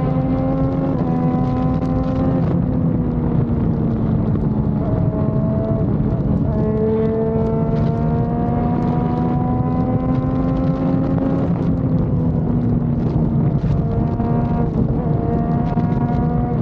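Motorcycle engine running at road speed, its pitch climbing slowly and dropping back several times, with steady wind rush over the microphone.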